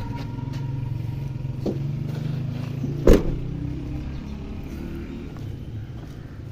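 Tailgate of a Toyota Land Cruiser Prado swung shut with one loud slam about three seconds in, over a steady low engine hum.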